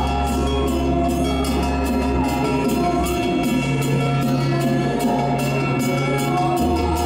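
Music with a steady drum beat over long held bass notes and sustained keyboard-like tones; the bass note changes about three seconds in and again near the end.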